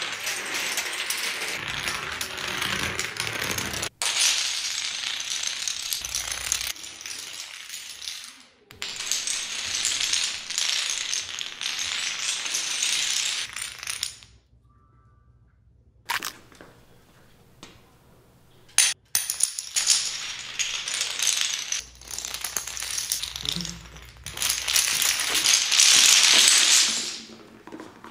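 Painted wooden dominoes toppling one after another in long chain reactions: a rapid, dense clatter that breaks off and restarts several times. It falls nearly silent for about two seconds halfway through, then comes a few single sharp clacks before the clatter picks up again and stops shortly before the end.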